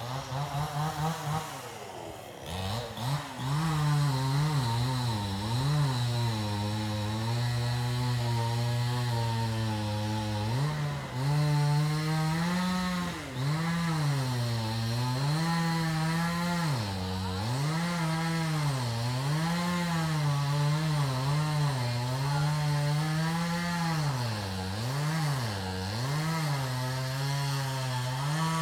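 Two-stroke chainsaw engine running hard while cutting wood. It picks up to full revs about two seconds in, then its pitch repeatedly sags under load and climbs again, about once every second or two.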